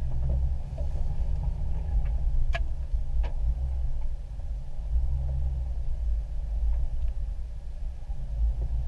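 Off-road 4x4's engine and drivetrain running, heard from inside the cab as it drives slowly through brush on a trail: a low, steady drone, with two sharp clicks or knocks a few seconds in.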